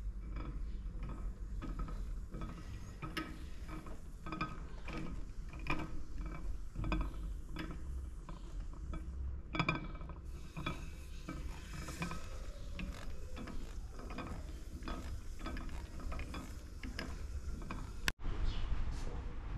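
A mechanism clicking and creaking irregularly, several clicks a second, over a steady low hum, with a brief cut-out near the end.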